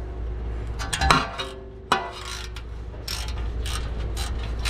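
A 13 mm wrench being cranked to tighten a heat-shield bolt: a string of irregular ratcheting metal clicks.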